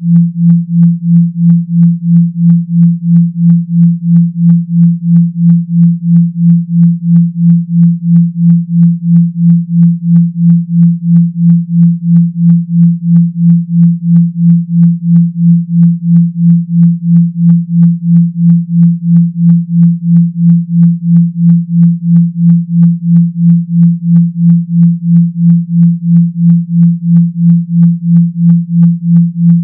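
Synthetic 170 Hz hum tone, pulsing evenly about twice a second without change: a buzzing vibration sound effect.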